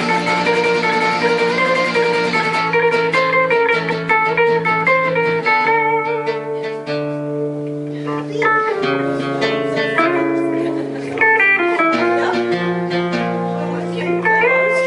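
A guitar played live, picking a melody over held lower notes, busier in the first few seconds and sparser through the middle.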